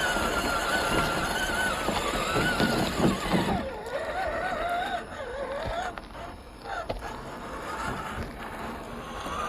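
Electric drive motor and gearbox of an MST CMX 1:10 scale RC crawler whining as it drives, the pitch wavering with the throttle, dropping lower through the middle and climbing again near the end. Scattered knocks and crunching from the tyres and chassis on the trail.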